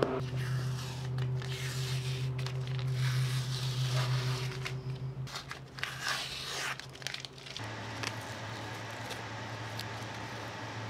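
Green masking tape being peeled and torn off a laser-cut wooden piece filled with resin, in repeated rasping strips, over a steady low hum. The tearing stops about seven and a half seconds in, leaving only the hum.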